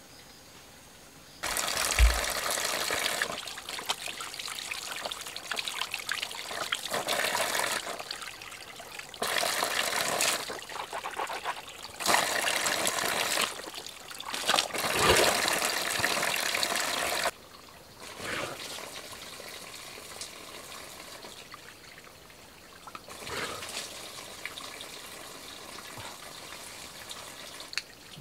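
Water pouring in a stream from a pipe onto rocks and splashing over a hand, in loud stretches that start and stop abruptly, with a low thump about two seconds in. From about seventeen seconds on it is much quieter.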